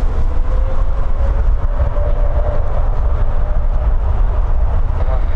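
Jet airliner engine noise, a deep, steady rumble with a faint whine rising slightly in the first few seconds, mixed with strong wind buffeting the microphone.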